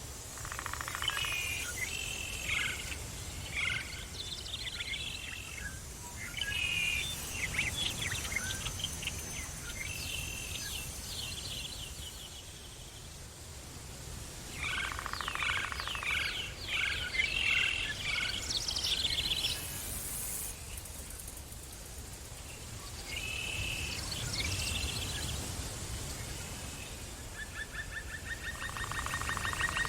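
Songbirds singing: phrases of rapid chirps and trills come in bursts with short pauses between them, over a steady low rumble.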